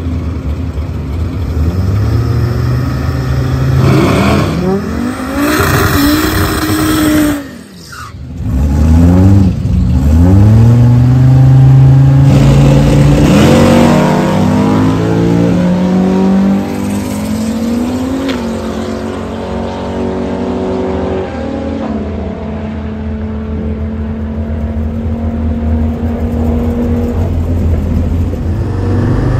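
Turbocharged GM Vortec 3500 inline five-cylinder drag car revving repeatedly, then launching down the drag strip with its pitch climbing again and again through the gears. It settles to a quieter steady drone as it pulls away into the distance.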